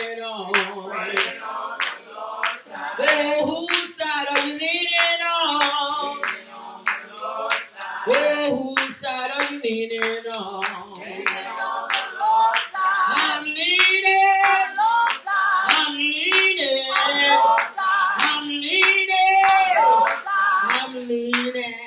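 A woman sings a gospel song into a microphone, accompanied by hand claps.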